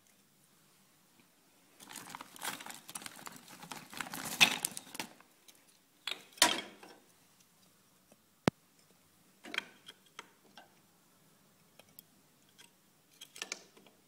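Thin kindling sticks being stacked by hand into a tower in a fireplace: wood clattering and scraping against wood and on the ash bed. A few seconds of rustling clatter, then scattered single knocks and clicks as the sticks are set in place.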